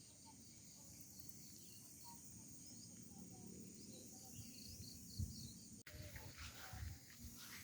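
Faint outdoor ambience of insects chirping in steady pulses, with a few faint higher chirps. After a sudden cut near the end, some low thumps.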